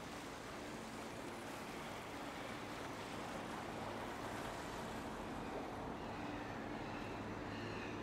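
Canal tour boat passing close underneath: a low steady engine hum and the wash of water over a background of city noise, growing slightly louder as the boat comes near.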